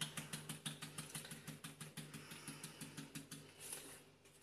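Spice shaker of sweet paprika being shaken over a bowl: a fast run of short rattling clicks, about five a second, stopping about three and a half seconds in.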